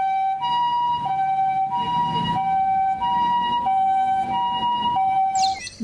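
Two-tone hi-lo ambulance siren, alternating steadily between a lower and a higher note, each held a little under a second.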